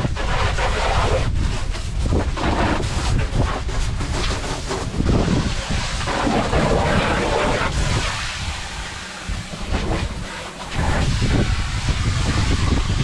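Wind buffeting the microphone: a heavy, uneven low rumble that eases briefly about three-quarters of the way through, with a rough hiss over it.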